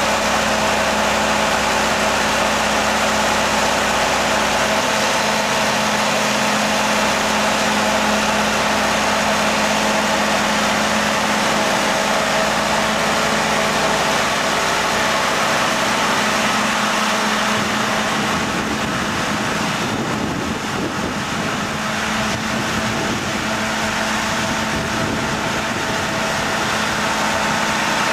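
An engine running steadily with a constant hum, slightly quieter for a few seconds past the middle.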